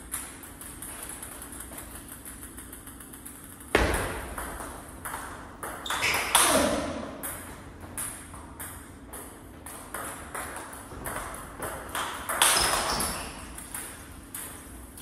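Table tennis ball being struck with rubber-faced bats and bouncing on the table: quick, irregular clicks in short rallies with brief pauses between them. Three louder sudden sounds stand out about four, six and twelve seconds in.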